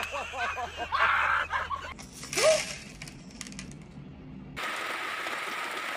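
A person laughing for about two seconds, then a short rising vocal cry. A steady hiss begins about four and a half seconds in.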